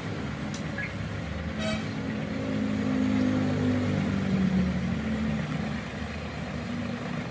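A motor or engine running with a low hum whose pitch wavers, growing louder through the middle; two sharp clicks in the first two seconds.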